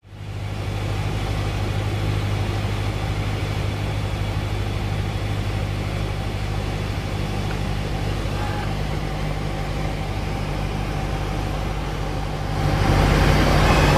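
Cessna 172's four-cylinder piston engine and propeller running steadily, heard inside the cabin. Near the end the sound gets louder and a thin high whistle comes in: the stall warning horn, the sign that the airplane is losing airspeed toward a stall.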